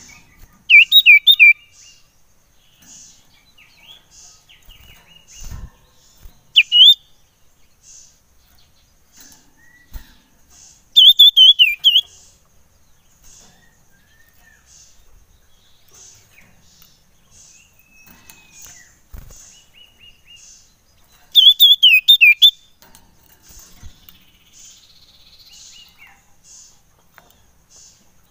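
Common iora giving four loud bursts of quick, sharp chirps, spaced several seconds apart. A faint, regular pulsing runs underneath throughout.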